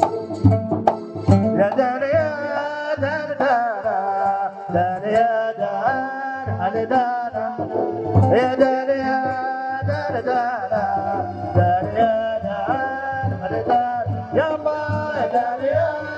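Omani Dhofari folk music: double-headed hand drums beating a steady rhythm, about two low beats a second, beneath a wavering melody line that bends in pitch.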